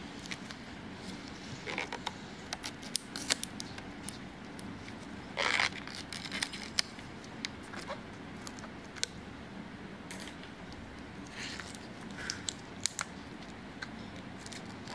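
Scattered small clicks and rustles of gloved hands working a latex rubber dam and its clamps between the teeth, with one louder brief rustle about five and a half seconds in, over a low steady hum.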